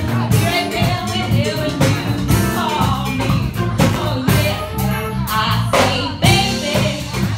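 Live band playing an upbeat number with drum kit, congas and guitar, a woman singing lead into a microphone over a steady beat.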